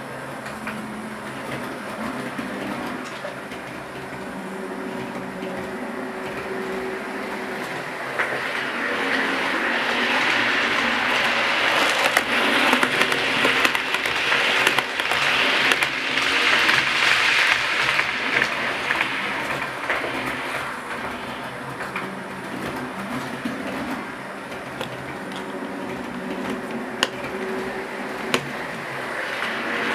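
00 gauge model trains running on the layout: a small electric motor's whine with wheels clicking over the rail joints, growing louder from about eight seconds in and fading again after about twenty seconds as a train passes close by. A few sharper clicks come near the end.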